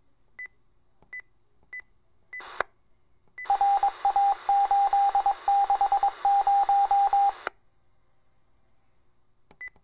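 Police radio scanner: a few brief key-up clicks, each with a short high beep. Then a hissing transmission of about four seconds carries a rapid string of about a dozen short beeps at one pitch, and it cuts off suddenly. Near the end come more clicks with high beeps.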